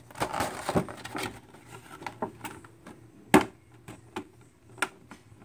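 Hard clear plastic packaging insert being handled and moved: a scatter of light clicks and knocks, the loudest a sharp knock about three and a half seconds in.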